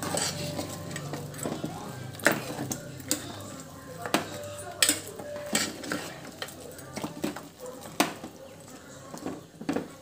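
Steel ladle stirring a thick curry in a pressure cooker pot, scraping and knocking against the pot's side in a dozen or so irregular clinks.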